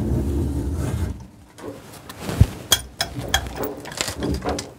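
Manual chain hoist (chain block) on a gantry crane being worked by hand: a low rumble during the first second, then irregular metallic clicks and clinks of the steel hand chain running through the hoist, with a single sharp knock about halfway.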